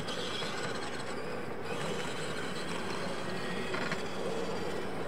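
Radio-controlled monster trucks racing on a dirt track, their electric motors and gears whirring steadily.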